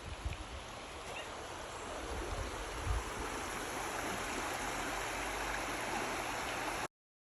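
River water rushing steadily over rocks, heard from the middle of the river, with a few low thumps in the first few seconds. It cuts off suddenly near the end.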